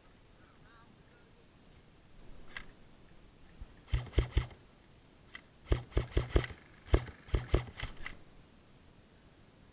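Airsoft gun firing about a dozen single shots as sharp clicks in three quick strings, between about four and eight seconds in.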